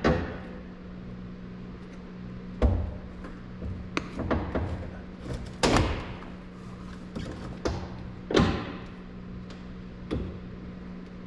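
About half a dozen knocks and thumps a second or two apart as a replacement headliner board is pushed and shifted against a pickup cab's roof and trim while its clips are started. A steady low hum lies beneath.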